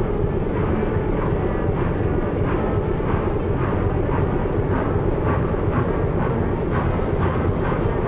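Train running: a steady, heavy rumble with a regular beat of about three strokes a second.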